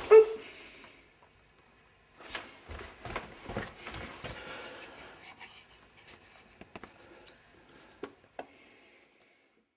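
Close knocks and rubbing thumps: one sharp loud knock right at the start, a flurry of them about two seconds in lasting about two seconds, then a few faint scattered clicks.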